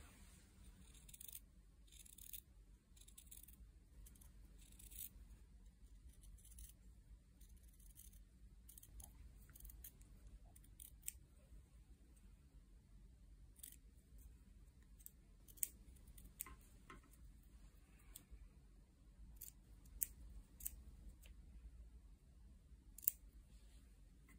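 Small scissors snipping through the white fabric around embroidered earring pieces: quiet, irregular crisp snips, several of them sharper and louder in the second half.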